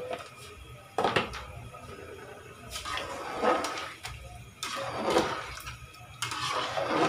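Soaked rice poured into a pot of boiling stock, then stirred with a metal spoon: liquid sloshing and swishing in the aluminium pot in three or four surges, with a sharp splash about a second in.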